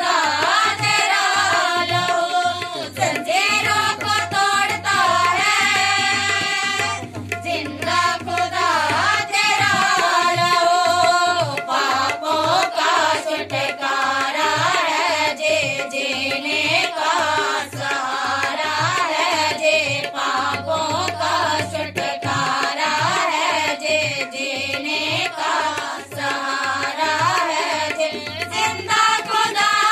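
Women's voices singing a Hindi Christian worship song together, accompanied by a steady hand-drum rhythm.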